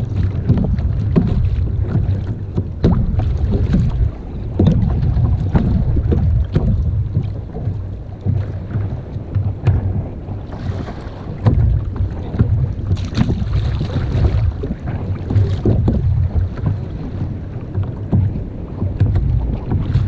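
Wind buffeting the microphone on a kayak at sea: a steady, uneven low rumble, with scattered knocks from the angler handling gear on the hull.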